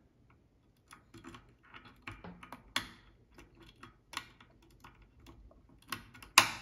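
Lock pick clicking and scraping against the pins inside a brass Abus 65/20 pin-tumbler padlock under tension, in quick irregular clicks. Near the end comes one loud sharp click, in time with the pick's finish: the lock opening.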